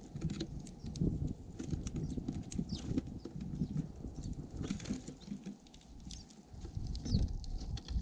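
Small birds feeding right by the microphone: an uneven run of soft taps and knocks as they peck and hop among the seed, with a few short high chirps.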